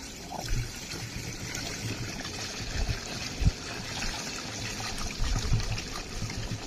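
Clear liquid pouring in a steady stream from a plastic jerrycan into a galvanized metal funnel, splashing into the funnel, with a few soft low bumps.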